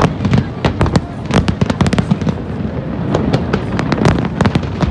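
Aerial fireworks bursting in quick succession: a dense run of sharp bangs and crackles over a continuous low rumble.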